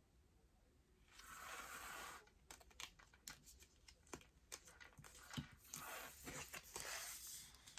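Cards being handled on a table: a soft slide or rustle about a second in, then scattered small taps and clicks, and another longer rustle near the end.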